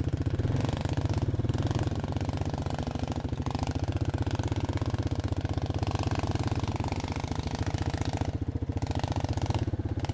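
Off-road vehicle's engine running steadily at low revs, with a rapid, even firing pulse.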